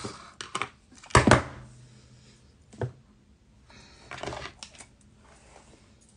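Handling noise as a flat iron is put down: a few scattered clicks and knocks. The loudest is a double thump about a second in, followed by a single knock near three seconds and a short run of clicks around four seconds.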